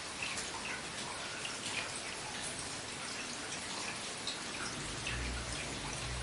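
Steady rain falling, with many individual drops ticking and splattering close by. A low rumble comes in near the end.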